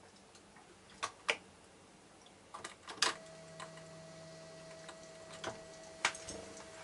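Sharp clicks and taps of a varied tit hopping on the wooden perches and the clear plastic response-key panel of a handmade bird feeder. About three seconds in, a loud click starts a steady hum with a higher tone over it from the Arduino-controlled feeder apparatus, and it runs on for about four seconds.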